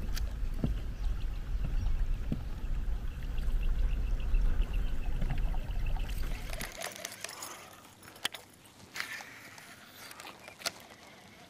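Water moving around a fishing boat, with a heavy low rumble that cuts out about two-thirds of the way through. After that the sound is quieter, with a few sharp clicks.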